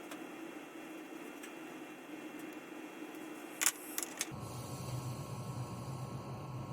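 A few sharp, quick clicks over a steady background hum, about three and a half seconds in; the hum changes abruptly to a lower one just after.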